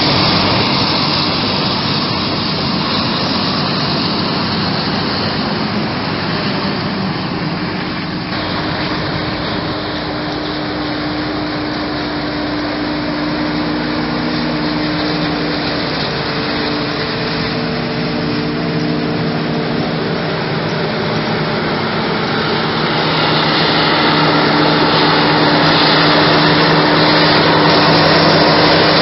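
Krone Big X 1100 forage harvester chopping maize, with a Fendt tractor and silage trailer running alongside: a loud, steady machine din with a constant engine hum under a dense hiss. The sound changes character about eight seconds in and grows louder over the last few seconds.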